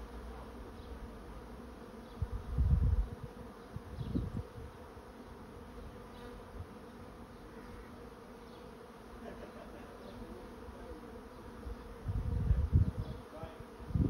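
A honey bee swarm in flight, a steady massed buzzing as the swarm moves into a swarm trap. A few louder low rumbling bursts come about two and a half seconds in, again at about four seconds, and near the end.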